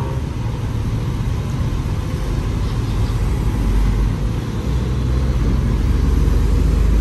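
Road traffic passing: cars and a heavy dump truck going by, the truck's diesel engine a deep rumble that grows louder in the second half.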